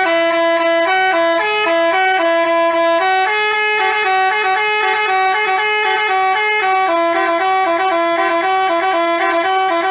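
Telolet Basuri multi-tone bus horn playing a quick tune, its notes stepping rapidly up and down between a few pitches without a break.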